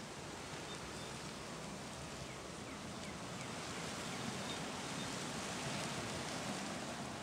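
Steady outdoor wind ambience, an even hiss, with a few faint high chirps.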